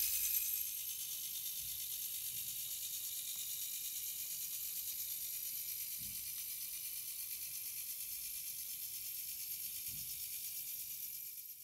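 1930 Meccano clockwork motor running down, its spring-driven gear train giving a steady high-pitched whirr with a fast, even ratcheting ripple as the toy tractor pulls the reaper. It drops in level about a second in and fades out near the end.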